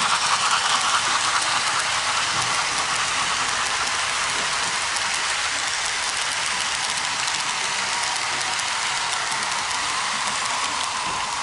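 Model steam locomotive and its passenger coaches rolling past on the track: a steady hissing rattle of wheels on the rails, with a quick regular ticking beat in the first couple of seconds.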